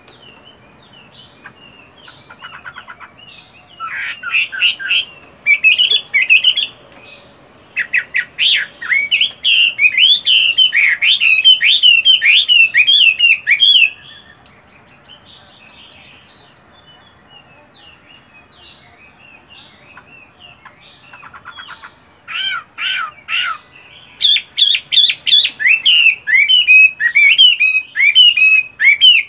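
Caged Chinese hwamei singing: long loud bouts of fast, sliding whistled notes, with a quieter stretch of soft notes in the middle before the song starts again.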